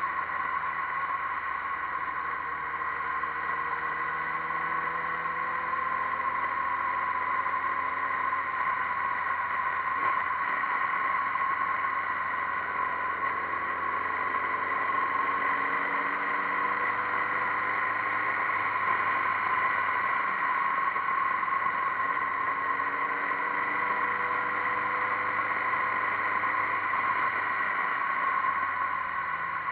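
Motorcycle engine running at road speed on a bike-mounted camera, its note slowly climbing and dropping back at a couple of gear changes, about a third and about three quarters of the way through. Over it lies a steady whine with wind and road noise.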